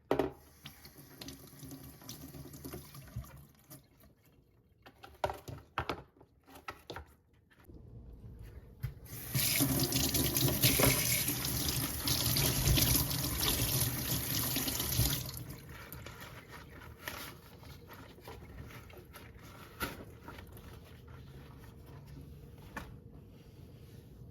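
Kitchen sink tap running into the sink for about six seconds, starting about nine seconds in. Scattered clicks and knocks of things being handled come before it, and quieter handling follows.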